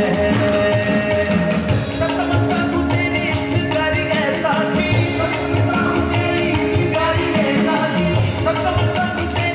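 Live qawwali music: tabla drumming a steady rhythm under harmonium, with a male lead voice singing.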